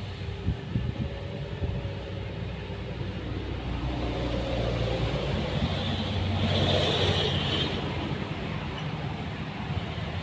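Roadside traffic: a motor vehicle's engine goes by, growing louder to a peak about seven seconds in, then fading.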